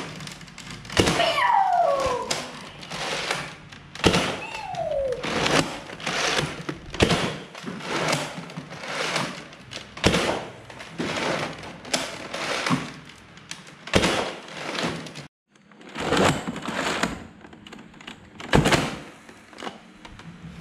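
Nerf Centurion Mega sniper blaster being primed and fired over and over: sharp plastic clacks and thunks about once a second. Twice in the first five seconds a falling whistle follows a shot, a Mega dart whistling in flight.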